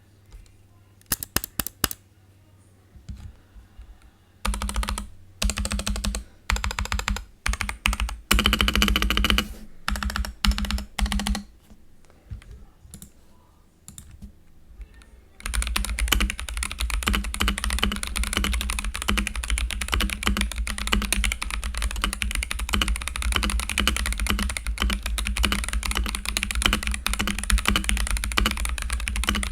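NuPhy Halo 65 mechanical keyboard with Gazzew Boba U4T tactile switches (68 g springs) being typed on: scattered short runs of keystrokes at first, then steady fast typing from about halfway through.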